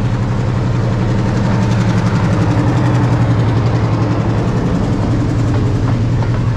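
Diesel locomotive's engine running with a steady low throb as it hauls a passenger train past at close range, loudest about three seconds in as the locomotive goes by.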